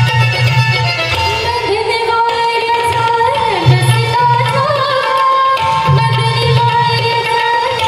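Marathi lavani song: a sung melody with long, sliding notes comes in about a second in, over a steady hand-drum beat.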